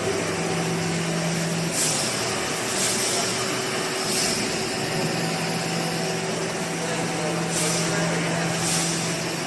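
Steady hum of running machinery, with five short hisses spread through it.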